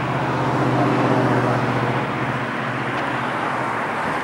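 Helicopter flying overhead, its rotor and engine giving a steady, low pulsing hum.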